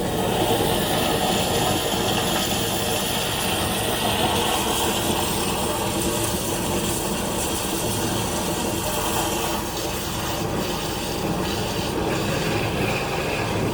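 High-pressure drain jetter running steadily: the pump's engine hums under a continuous hiss of water forced through the jetting hose.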